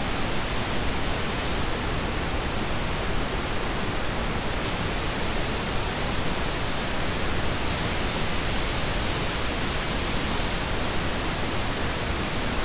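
Steady pink noise, cycling between the unaltered signal and a narrow EQ band at 7 kHz: the top end dips from about two seconds in to about five seconds (a 3 dB cut), then lifts from about eight to eleven seconds (a 3 dB boost). The boost brings out a sibilant edge.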